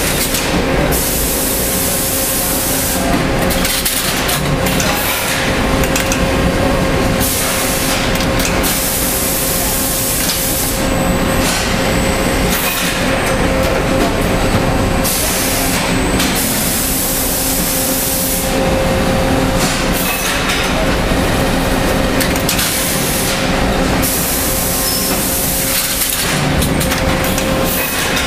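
Samuel SMSB6VK30 ingot strapping machine at work strapping a stack of ingots with plastic strap, over a steady machinery hum, with repeated bursts of hiss every few seconds.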